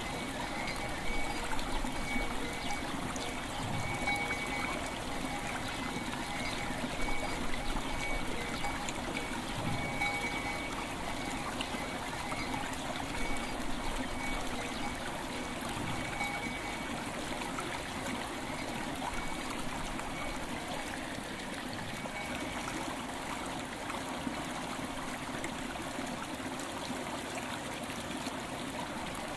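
River water flowing and trickling steadily, with faint bell tones ringing now and then through the first half.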